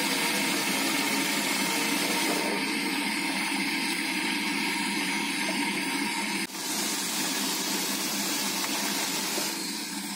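Hot oil sizzling steadily as a large batch of tofu cubes deep-fries in a wide pan. The sizzle drops out briefly about six and a half seconds in.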